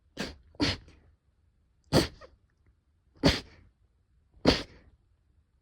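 A run of five short, sharp sneezes: two in quick succession, then three more about a second and a quarter apart.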